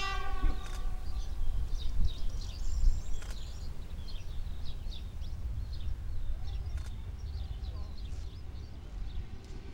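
A railcar's horn ends about half a second in, then many short bird chirps continue over a low rumble.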